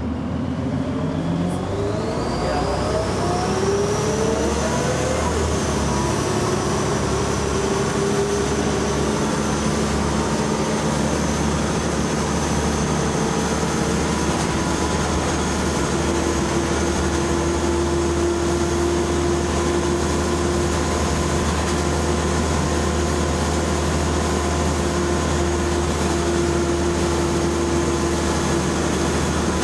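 Scania L94UB bus engine and ZF automatic gearbox heard from inside the bus. The whine rises in pitch over the first few seconds as the bus accelerates, then holds a steady pitch while it cruises.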